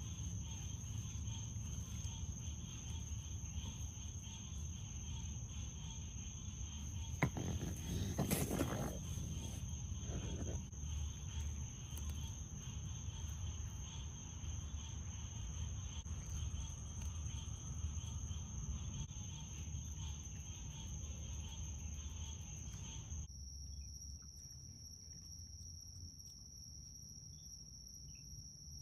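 Crickets chirping in a steady, high-pitched trill over a low background rumble, with a brief noisy patch about eight seconds in. Near the end the trill shifts slightly lower and the rumble drops away.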